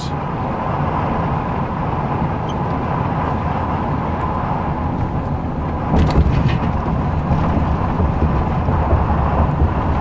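Steady road and engine noise inside the cab of a moving pickup truck, growing louder with more low rumble about six seconds in.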